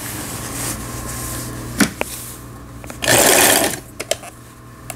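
Lion Line 17 household sewing machine running after a gearbox replacement, a steady hum with a couple of clicks during a test on stretch fabric. About three seconds in there is a short, loud hiss-like burst, then a few clicks near the end as the stitch-selector dial is turned.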